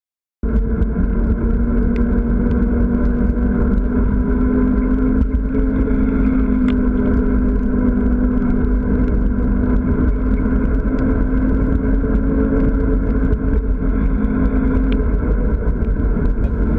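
Wind and tyre noise from riding a mountain bike on a wet paved trail, picked up by a GoPro in its housing: a loud, steady rush with a low hum underneath, starting abruptly about half a second in.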